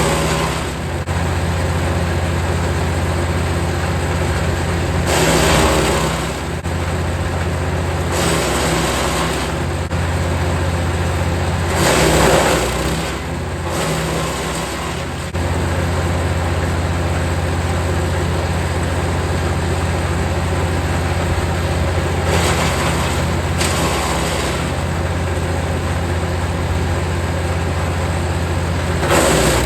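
Jansen 1500e GTS wood chipper's engine running steadily, with several short spells of louder noise as branches are fed in and chipped.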